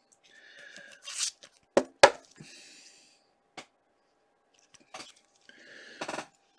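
Handling of a hard plastic trading card case: two sharp plastic clacks about two seconds in, with softer clicks and brief rustling of cards and packaging around them.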